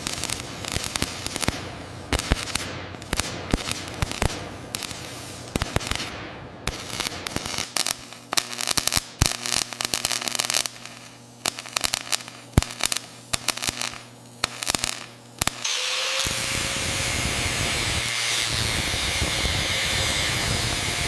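Pulsed gas-shielded arc welding: the arc crackles in dense, irregular pops for about fifteen seconds. It then gives way to a steady, even hiss.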